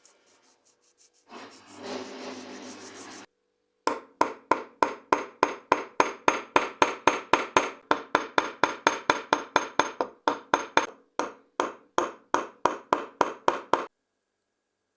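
Small hammer tapping on the metal of an old pocket knife, about three to four even taps a second for some ten seconds with two short breaks. Before it comes a brief stretch of rubbing.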